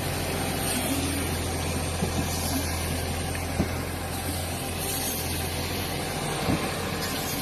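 Heavy machinery running steadily: a constant low engine hum under dense mechanical noise, with a few brief knocks about two, three and a half, and six and a half seconds in.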